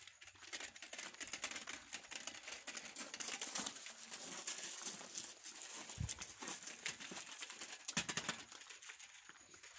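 Rustling and scraping of a handheld camera's microphone while its holder walks, with quick footsteps on paving stones. Two heavier thumps about six and eight seconds in, the second the loudest.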